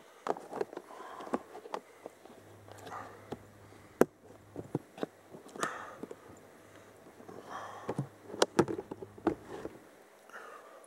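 Close-up hand work with plastic food containers: a series of irregular sharp clicks and knocks with some rustling, the loudest knocks about four seconds in and again after eight seconds.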